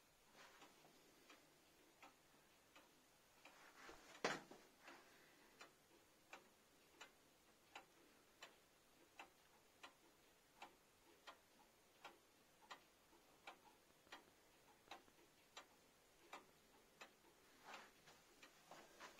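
Gebrüder Resch single-weight pendulum wall clock (ca. 1863) ticking faintly and evenly, about three ticks every two seconds. One louder knock comes about four seconds in.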